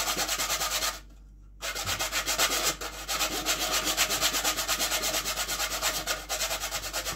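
Whole nutmeg scraped rapidly against a metal box grater: a fast, even run of rasping strokes, with a short pause about a second in.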